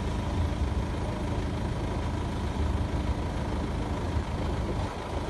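Truck's diesel engine running steadily, a low even drone with no change in pitch.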